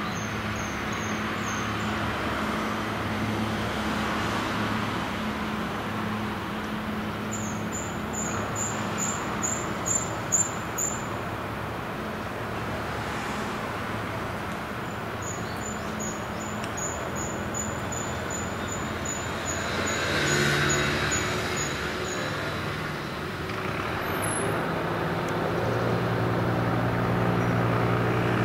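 Ship's diesel engine running with a steady low hum, growing louder over the last couple of seconds as the tugboat puts on power and smokes black.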